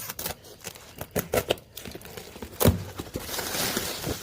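Packaging being opened and handled: crinkling plastic and cardboard with a string of clicks, a knock about two and a half seconds in, then rustling.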